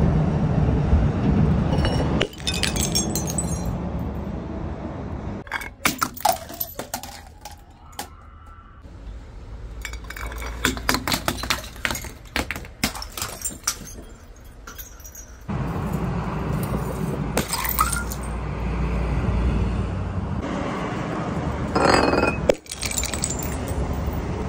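Full glass soda bottles smashing on stone steps, one short clip after another. Several rounds of sharp cracks and clinking shards come between stretches of steady low background noise.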